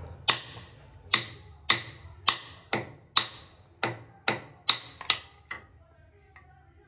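Metal ladle clinking against the side of a metal pot of milk as it is stirred: about eleven sharp, ringing clinks, roughly two a second, stopping a little before the end.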